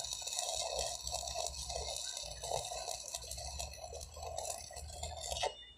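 Stick (arc) welding on a steel column base: the electrode arc crackles and sizzles steadily, then cuts off suddenly near the end as the arc is broken.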